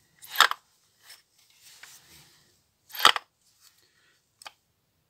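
Throttle plate of a BMW N53 throttle body worked by hand and clicking shut twice, sharp clicks about two and a half seconds apart, with a few fainter clicks between. The plate closes freely and no longer sticks, now that it has been cleaned.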